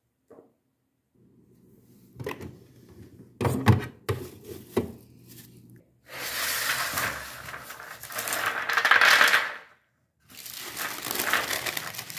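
A few sharp knocks and clinks of kitchenware, then baking paper crinkling and rustling loudly in two long stretches as it is handled and pressed into a metal baking tray.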